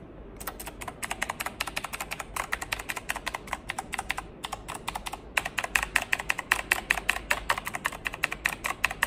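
Razer BlackWidow X Chroma mechanical keyboard's keys being pressed in rapid succession, a dense run of clicky keystrokes with a short pause about halfway through.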